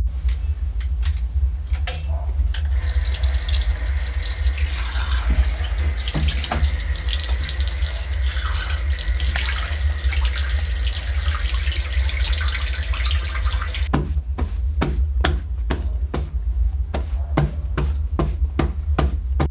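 Bathroom tap running into a sink with water splashing as a face is washed, over a steady low pulsing drone. The water cuts off suddenly about fourteen seconds in, followed by a run of short sharp sounds as a towel is handled.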